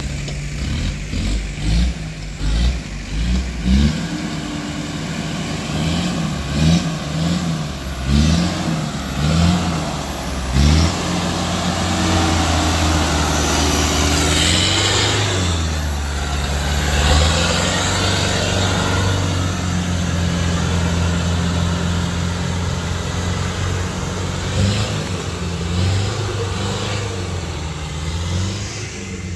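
Off-road 4x4's engine blipping through a quick run of revs, then running steadily at higher revs, with a broad rush of noise about halfway through.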